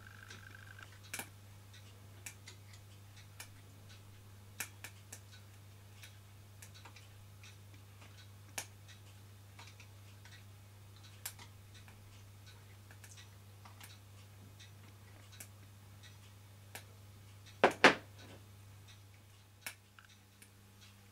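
Sparse light clicks and taps from a thumb-pump oil can being worked over a small vertical steam engine's moving parts, with a louder double click about eighteen seconds in. A low steady hum lies underneath.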